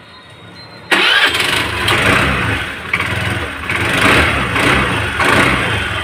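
Hero Pleasure scooter's single-cylinder engine starting about a second in, then running with its level rising and falling a few times as the rear wheel spins. There is no squeal from the rear drum brake: the wheel runs free now that the rust has been sanded off the drum.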